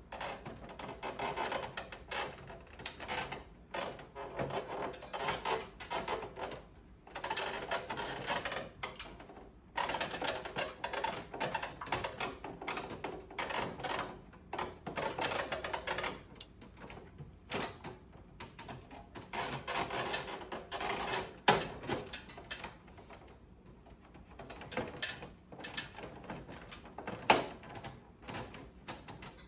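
Plastic casing parts of an AUX air conditioner's indoor unit being handled and pushed into place: irregular clattering and clicking, with a couple of sharper snaps about two-thirds of the way through and near the end.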